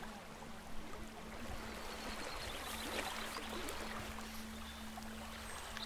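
Thin water trickling and fizzing over wet sand, a soft hiss with a fine crackle, and a faint steady low hum underneath.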